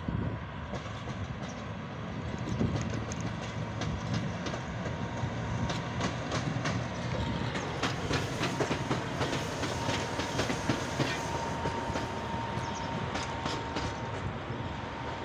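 PKP Cargo ET22 electric locomotive passing on its own along station tracks, its wheels clicking rapidly over rail joints and points, most densely in the middle as it passes closest. A steady high tone runs under the rail noise.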